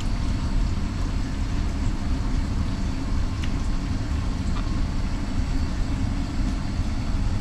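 Steady low rumbling hum of background machinery, with a faint high whine and a couple of faint light clicks.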